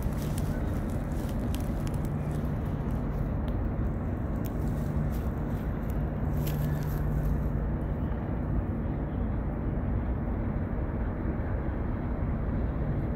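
Tugboat diesel engines running: a steady low drone with a hum that swells now and then.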